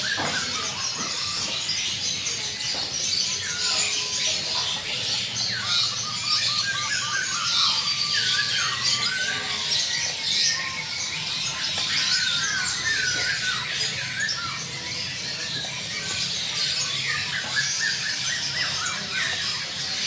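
Many caged birds calling at once: a dense, overlapping chorus of high chirps and whistled calls.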